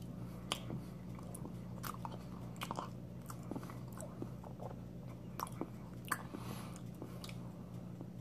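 Chewing a mouthful of lychee cake, a soft pastry with a gel filling, with scattered wet mouth clicks and smacks, over a steady low hum.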